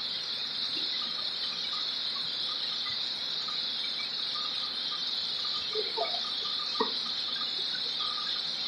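Steady high-pitched insect chorus, with a few faint short chirps, a brief sound about six seconds in and a click just after it.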